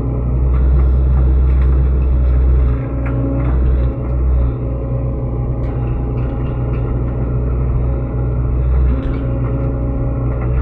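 SANY SY75C excavator's diesel engine running steadily under working load while digging out a bamboo clump by the roots. Its level swells over the first few seconds and dips briefly a few times as the hydraulics take and release the load.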